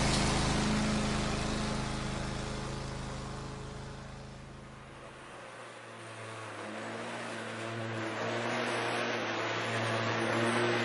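Lawn mower engine running steadily, fading to its quietest about five seconds in and then growing louder again.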